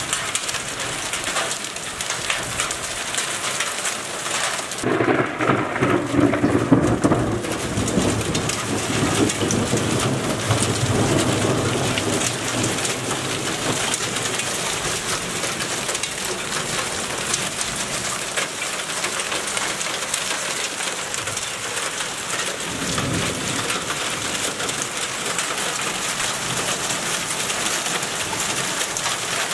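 Hailstorm: hailstones and rain pelting down on hard ground in a steady, dense patter. A long rumble of thunder runs from about five to eleven seconds in.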